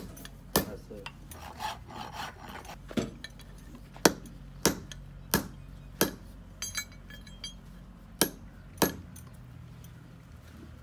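Farrier's hammer striking metal on a small block, about eight sharp, irregularly spaced blows, with brief metallic clinking between blows about two-thirds of the way through.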